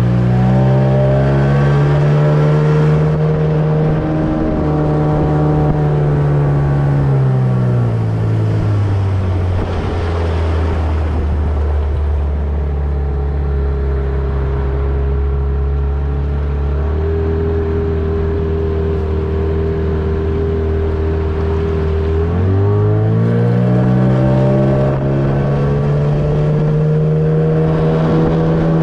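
Outboard motor driving an aluminium fishing boat along. The engine eases down to a lower steady speed about a third of the way in, then revs back up near the two-thirds mark.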